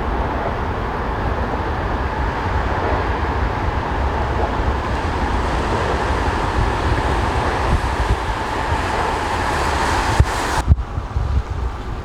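Wind buffeting the microphone over a steady hiss of city street and traffic noise. The hiss slowly grows louder, then cuts off abruptly near the end.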